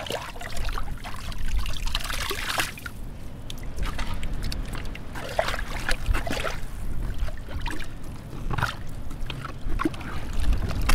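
Shovel blade churning through muddy water in a flooded pit: irregular sloshing and splashing, with a few sharp clicks.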